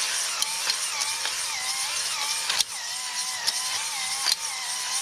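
A DeWalt cordless drill spins a stone cylinder hone in a Ford big-block's cast-iron bore. The motor's whine wavers in pitch as the load comes and goes, over the hiss of the wetted stones scraping the cylinder wall, with occasional sharp clicks, the loudest about halfway through. This is the honing that cleans up the rusted bore and leaves a cross-hatch.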